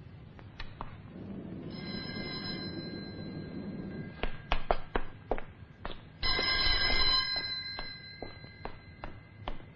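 Telephone ringing twice, a longer ring and then a shorter one, with a run of sharp knocks between the rings and after them.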